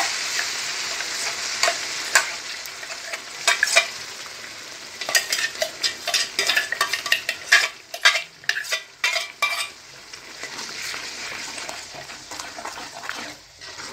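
Tomato-onion puree sizzling and spitting as it goes into hot oil in a large metal pan. About five seconds in, a spoon clatters and scrapes against metal in quick clicks and knocks for several seconds while the frying carries on underneath.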